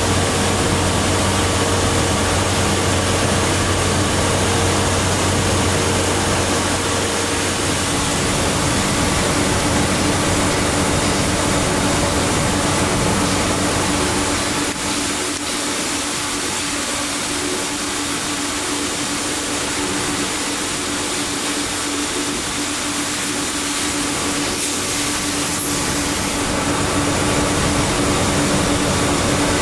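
Okamoto ACC-84EX surface grinder running, a steady machine hum while its table travels back and forth under the grinding wheel. The deep part of the hum falls away about halfway through.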